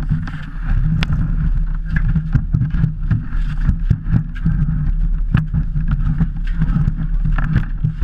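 Bobsleigh running at speed down an ice track: a steady low rumble from the steel runners on the ice, with frequent sharp knocks and rattles as the sled jolts.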